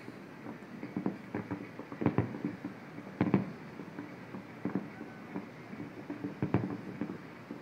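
Distant fireworks going off: a string of irregular dull bangs, the loudest about two and three seconds in.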